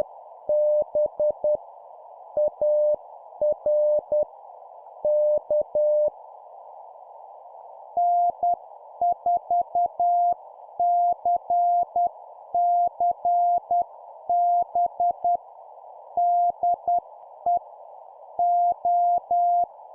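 Morse code (CW) at about 10 words per minute: one station's keyed tone of dots and dashes ends about six seconds in, and after a two-second pause a second station answers at a slightly higher pitch. Throughout, a steady hiss like receiver band noise sits behind the tone.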